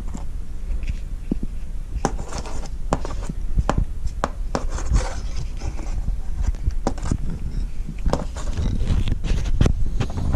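Hands handling freshly soldered fuel pump wires and heat-shrink tubing: scattered rubs and clicks, over a steady low rumble.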